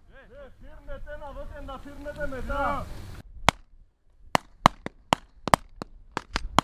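A man's raised voice for about three seconds, then single rifle shots cracking at uneven intervals, about ten in the last three seconds.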